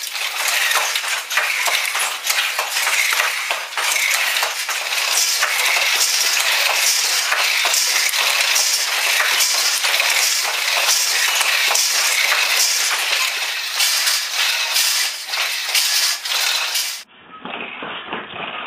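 Rapid, dense metallic clinking and ticking from hand work at the warp of a wooden handloom. A little before the end it cuts abruptly to a duller, muffled sound.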